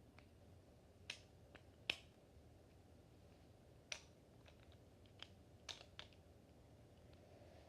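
Scattered sharp clicks and taps of small hard objects being handled, about half a dozen spread irregularly over a near-silent room, the loudest a little under two seconds in.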